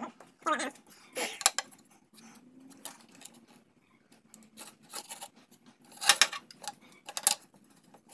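Scattered sharp clicks and clinks of small hard objects being handled, about half a dozen spread irregularly, the loudest around six seconds in.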